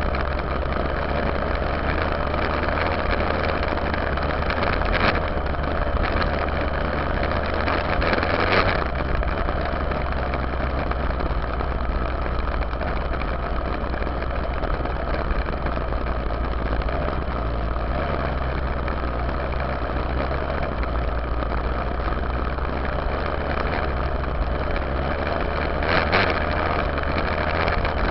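Yamaha YZ dirt bike engine running while the bike is ridden, heard from a camera on the rear fender, over a steady low rumble. It swells briefly louder about a third of the way in and again near the end.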